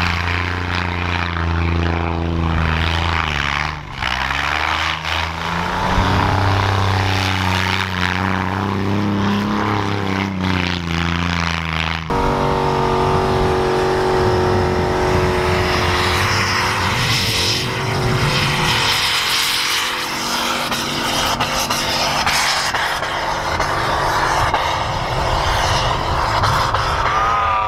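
Off-road 4x4 engines revving hard while their tyres spin through deep powder snow, the engine pitch dropping and climbing again. About halfway through, the sound cuts abruptly to a different vehicle's engine running at higher revs with more hiss over it.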